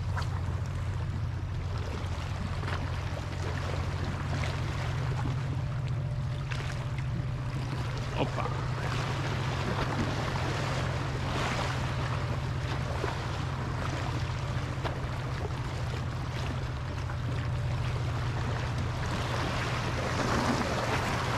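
Sea waves washing and splashing over shoreline rocks, over a steady low rumble, with louder splashing near the end.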